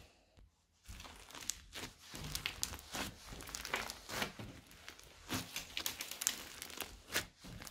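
Foam-bead slime being squeezed and kneaded by hand: irregular crunchy crackles and sticky pops as the beads shift and the slime pulls apart, starting after a short quiet moment at the beginning.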